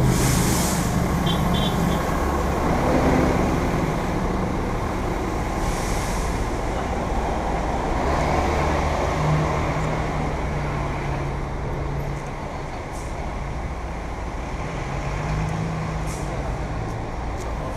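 Busy road traffic: a double-decker bus and trucks running close by, a steady low rumble with two brief hisses, one at the start and one about six seconds in.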